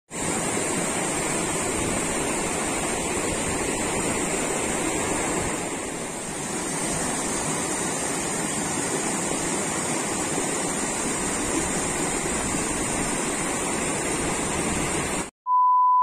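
Water of a rocky stream rushing over stones, a steady hiss with a steady high band above it. Near the end it cuts off abruptly and a short, loud electronic beep sounds.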